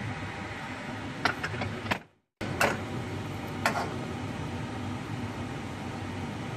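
A steady mechanical hum with a few short, sharp clicks. The sound cuts out completely for a moment about two seconds in.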